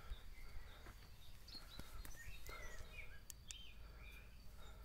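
Faint outdoor background: scattered short bird chirps over a low steady rumble, with a couple of light clicks a little past the middle.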